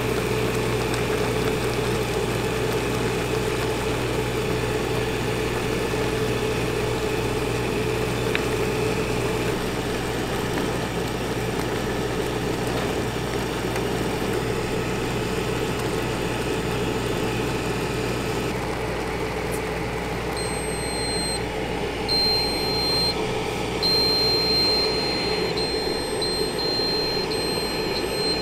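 Automatic ramen cooker running as it boils instant ramen in a paper bowl: a steady mechanical hum with the noise of the boiling water. From about twenty seconds in, a high electronic beep sounds on and off repeatedly.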